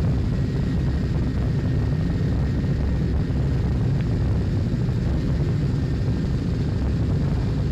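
Steady drone of a large military aircraft's engines and rushing air inside the cockpit in low-level flight, with a faint steady whine above it and a single click about four seconds in.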